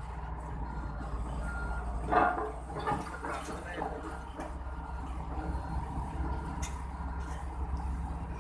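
Heavy diesel machinery running with a steady low rumble, with a brief louder sound about two seconds in and a smaller one about a second later. No regular hammer blows can be picked out.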